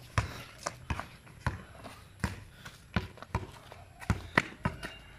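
A basketball being dribbled on a concrete court: a string of sharp, irregular bounces, about two a second, with the scuff of footsteps between them.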